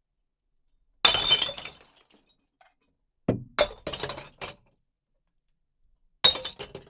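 Glass bottles smashing inside a bottle bank: a crash of breaking glass about a second in with a tail of tinkling fragments, a quick run of heavy clunks and clinks a little after three seconds, and another crash of breaking glass near the end.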